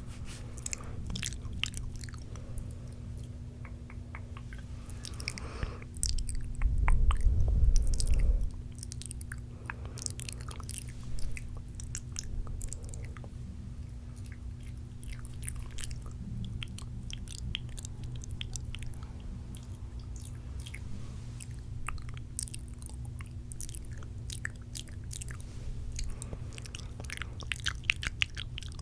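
Close-miked wet mouth sounds: rapid spitty clicks, pops and smacks of the lips and tongue. About six seconds in there is a louder, muffled low stretch lasting about two seconds.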